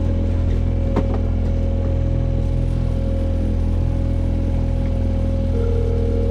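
Mercury outboard motor running steadily, a low, even drone with a constant hum above it. A single sharp click about a second in, and a second steady hum joins near the end.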